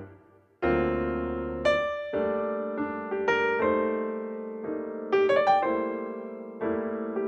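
Background piano music: struck notes and chords that fade after each strike, over a steady low note.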